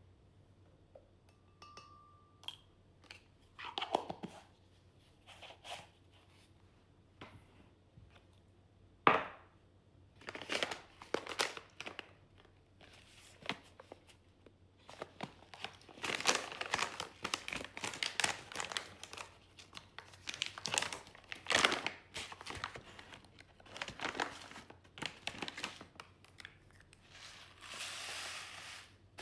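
Packaging being crinkled and torn open by hand in irregular rustling strokes, with a sharp knock about nine seconds in.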